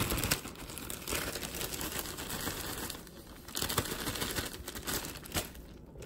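Plastic bag crinkling and rustling as it is handled to mix the seasoned flour inside, with a short lull about three seconds in.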